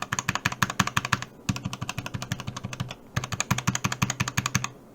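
Keys on a Keychron K4 mechanical keyboard struck rapidly, about nine clicks a second, on switches with rubber O-rings fitted inside to damp the bottom-out clack. The clicks come in three quick runs, with short pauses about a second and a half and three seconds in.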